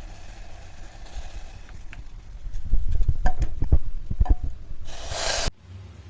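Kitchen handling noises: a run of low knocks and sharp clicks, like a pot or utensils being set down and moved, then a short burst of hiss that cuts off sharply.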